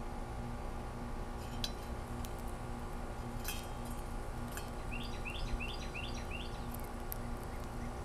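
Sharp clicks of a female northern cardinal's bill cracking seed and knocking on a plastic feeder tray, a few scattered through the first half. About five seconds in, a bird calls a quick series of about eight short rising chirps. A steady hum runs under it all.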